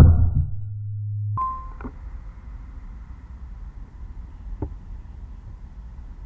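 A single sudden deep thump, then a low hum that holds for about a second and a half and cuts off abruptly. After it comes steady outdoor background noise with a faint click about four and a half seconds in.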